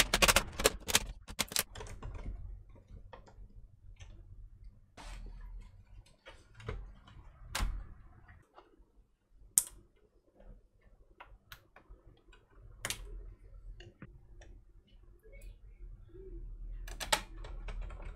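Irregular clicks, snaps and taps of a Dell Inspiron 15 3000 laptop's plastic case being handled and taken apart with a plastic pry tool: a quick run of clicks at the start, scattered single clicks through the middle with one sharp snap about halfway, and another cluster near the end.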